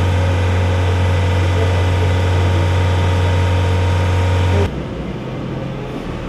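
Steady low drone of a heavy vehicle's engine running, with a constant hum and overtones, cutting off abruptly about three-quarters of the way through.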